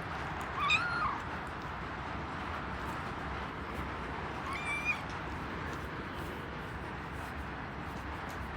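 A kitten meows twice: short, high calls about a second in and again near five seconds in, over a steady background hiss.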